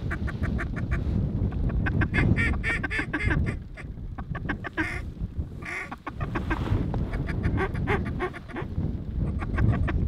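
Duck quacking in fast runs of short notes, with a longer drawn-out call about five seconds in, over heavy wind rumble on the microphone.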